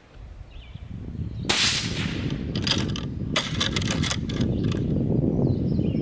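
.223 rifle shot striking a steel Chubb Battleship padlock hung on chains: a sharp crack about a second and a half in. A run of metallic rattles follows as the lock and chains swing.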